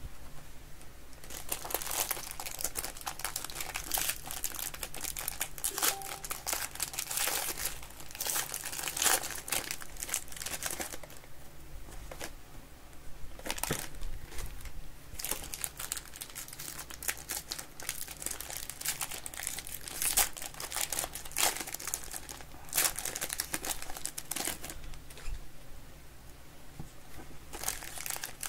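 Plastic-foil wrappers of football trading-card packs being torn open and crinkled by hand: a long run of irregular crackling and tearing.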